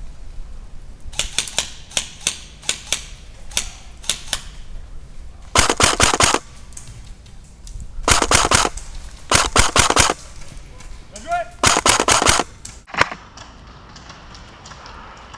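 Airsoft guns firing: scattered single shots, then four short rapid-fire bursts, the last followed by one more single shot.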